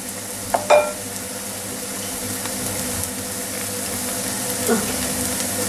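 Pasta frittata frying on its second side in seed oil in a pan, a steady sizzle. A wooden spoon knocks against the pan twice a little under a second in.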